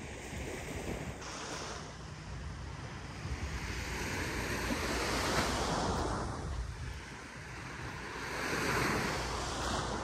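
Small surf washing onto the beach, the wash swelling and fading twice, about four seconds apart, with wind rumbling on the microphone underneath.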